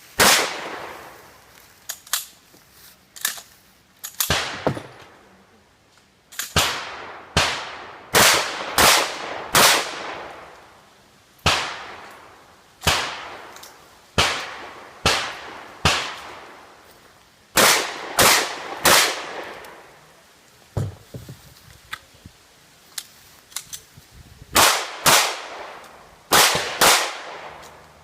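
A string of gunshots fired in quick succession, about twenty-five in all. They come in runs with shots roughly half a second to a second apart and short pauses between runs. Each sharp report rings out briefly, and a few fainter shots are mixed in.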